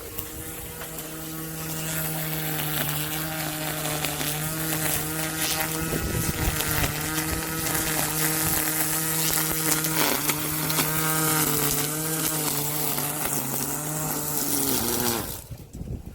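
A small engine or motor running steadily with a constant low hum, then winding down and stopping near the end.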